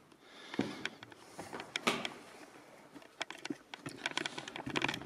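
Irregular clicks, taps and rustles from a person moving about with a handheld camera, sharpest about half a second in, near two seconds and near the end.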